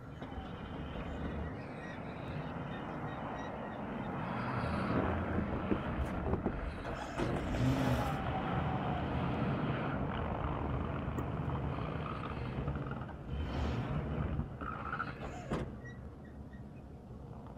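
Engine of a pickup truck with a front-mounted snowplow running as it backs up and then drives forward plowing snow. It grows louder through the middle as the truck works closer, then eases off near the end.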